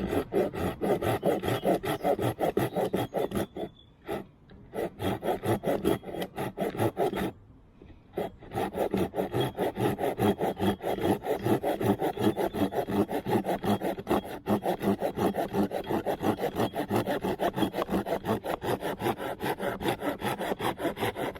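Silky Pocketboy Outback Edition folding pull saw cutting through a wet branch in quick, even back-and-forth strokes, pausing briefly twice. The medium teeth cut with a little stuttering.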